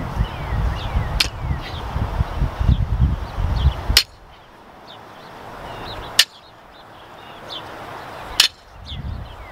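Outdoor ambience: small birds chirping, with wind rumbling on the microphone for the first four seconds. Four sharp clicks break it, and the background changes abruptly at the last three.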